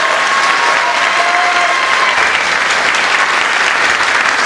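Dense, steady applause from the audience in a hall and the cast on stage, clapping together.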